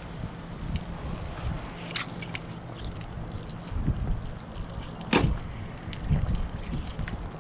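Wind rumbling on the microphone, with a few small clicks and knocks of handling. The sharpest click comes about five seconds in.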